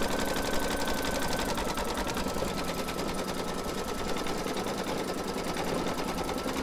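Computerized embroidery machine stitching a free-standing lace design: a fast, even needle chatter with a thin whine that steps slightly lower about one and a half seconds in.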